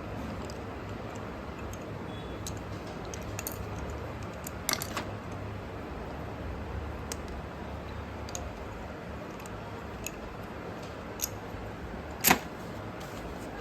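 Sparse light clicks and taps of small hard objects being handled, with one sharper click about twelve seconds in, over a steady low hum.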